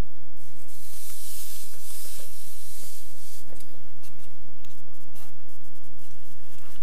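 Clear plastic packaging rustling and sliding as it is pulled off a plastic figure display piece, with a few light plastic clicks, over a steady low hum.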